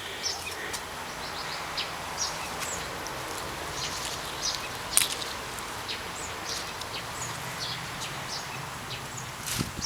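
Small songbirds chirping, short high chirps scattered throughout, over a steady rush of wind in the trees and leaves. One sharp tick about halfway through stands out as the loudest moment.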